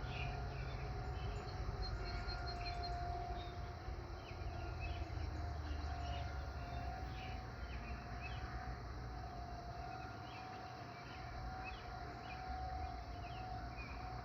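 A distant tornado warning siren holds one steady tone, swelling and fading in loudness every few seconds. Birds chirp over it throughout.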